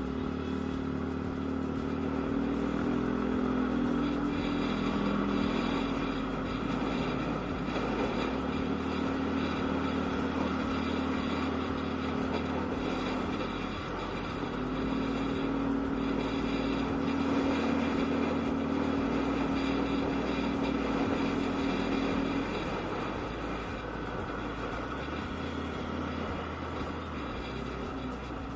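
Yamaha Aerox scooter's single-cylinder engine running at a steady cruise while riding. Its note eases off twice and then picks up again.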